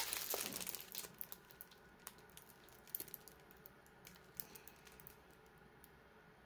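Plastic-covered diamond painting canvas crinkling and crackling as it is unfolded and held up, densest in the first second, then fading to faint scattered crackles.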